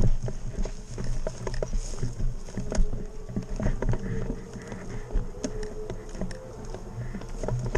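Walking through forest undergrowth: many irregular crackles and snaps of twigs and dry debris underfoot, over a low rumble of movement against the microphone.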